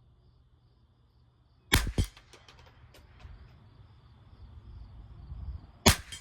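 Two sharp cracks a quarter second apart about two seconds in and a third near the end, with a few lighter clicks between, over a low steady hum.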